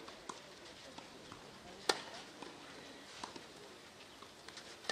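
Tennis balls being hit back and forth in a rally on a clay court. Sharp racket pocks, the loudest about two seconds in, with fainter hits and bounces between.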